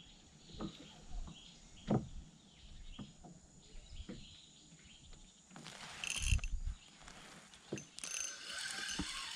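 Faint knocks and handling of fishing gear in a small boat. Near the end, a spinning reel whirs with a steady, buzzy tone.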